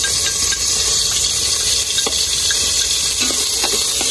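Garlic, onion and ginger sizzling as they fry in fat rendered from duck skin, a steady hiss with a few light knocks of a stirring utensil.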